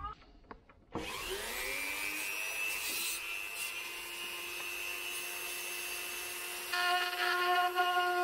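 A small high-speed rotary tool with a cutting disc switches on about a second in and spins up with a rising whine, then runs at a steady high pitch. Near the end it grows louder as the disc cuts into a plastic trim panel.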